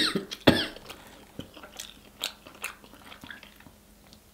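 Close-miked eating sounds: biting and chewing sauce-dipped rotisserie chicken, with lip smacks. A loud bite or smack comes about half a second in, followed by scattered softer clicks of chewing.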